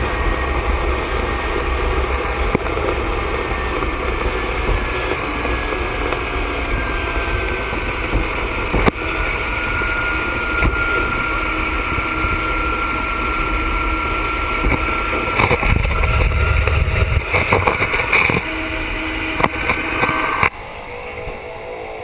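PAC 750XL's Pratt & Whitney PT6A turboprop running as the plane taxis, heard from inside the cockpit: a steady rumble with a thin whine over it and a few knocks. The sound gets louder around the middle and drops noticeably near the end.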